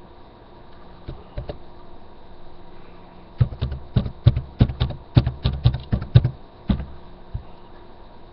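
Typing on a computer keyboard: two keystrokes, then a quick, uneven run of about a dozen keys over some three seconds, and a last key or two near the end.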